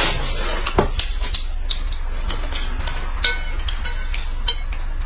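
Chopsticks and a spoon clinking and tapping against noodle bowls, one of them metal, in scattered short clicks, a few with a brief ring, over a steady low hum.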